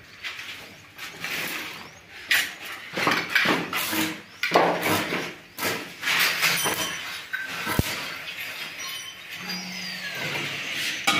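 Stick (arc) welding on a joint of a stainless steel railing pipe: the electrode arc crackles and sputters in short, irregular runs with brief breaks between them.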